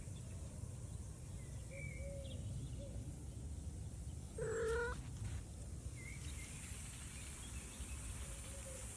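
A domestic cat meows once, briefly, about halfway through, over a steady low background rumble.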